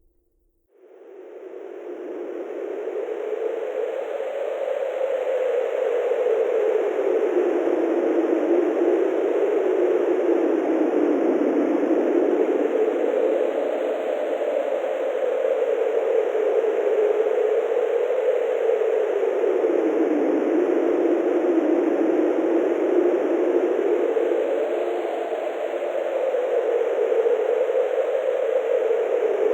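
Wind sound effect: a steady rushing of wind with a hollow tone that slowly rises and falls in pitch, fading in over the first few seconds.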